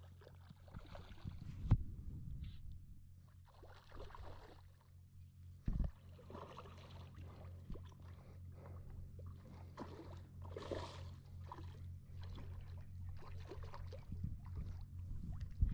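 Spinning reel on an ultralight rod being worked while fighting a hooked carp: short spells of reel cranking and line noise every second or two over a steady low hum.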